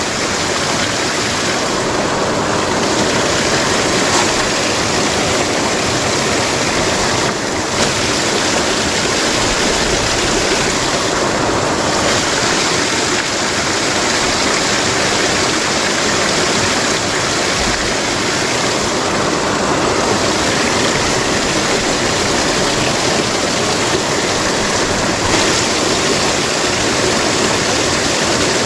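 Steady rushing of a shallow, rippling river's flowing water.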